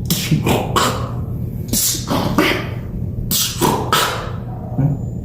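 Beatboxing: a string of sharp, hissy mouth-percussion strikes and breathy snare-like sounds in an uneven rhythm, thinning out near the end.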